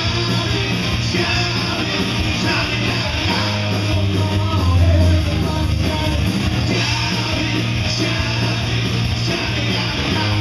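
Live rock band playing electric guitars, bass and drums through a club sound system.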